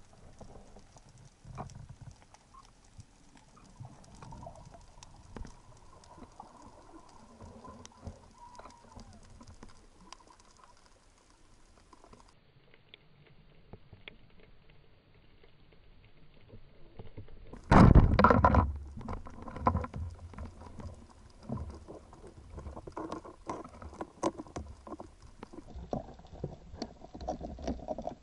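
Underwater sound over a shallow rocky reef: a faint, continuous crackle of small clicks. A little past halfway comes a loud rushing burst lasting about a second, followed by denser, irregular clicks and knocks.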